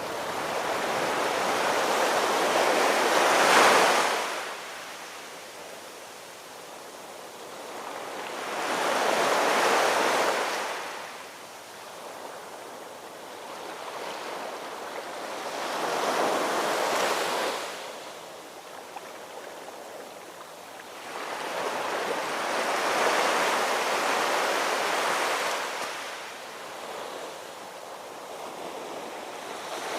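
Ocean surf: waves rolling in and washing out, four surges about every six to seven seconds, each swelling and then ebbing away.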